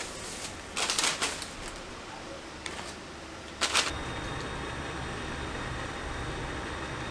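Metal tongs clicking and clattering against a perforated steel draining rack in a few short bursts as fried hotteok are moved. From about four seconds in there is a steady even hum of outdoor street background.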